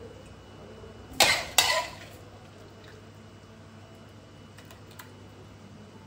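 A person coughing twice in quick succession, about half a second apart, over a faint steady background hum.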